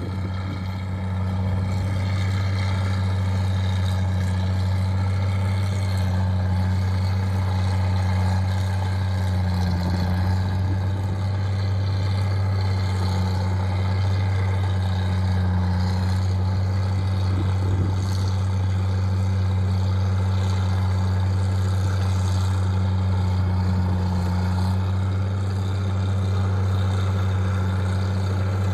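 Small tractor's engine running steadily at a constant pitch while working the field: a continuous low drone with no revving or changes.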